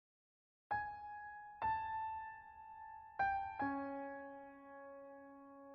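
Background music: slow electric piano notes struck one after another and left to ring and fade, ending on a lower sustained chord.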